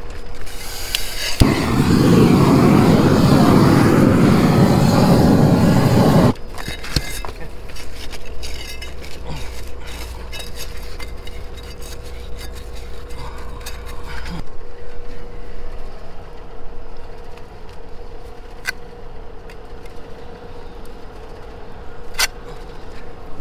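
Propane roofing torch firing at full flame for about five seconds, heating a torch-down modified bitumen membrane, then shut back abruptly. After that a low hum continues for a while, then quieter trowel scraping on the membrane with a couple of sharp clicks.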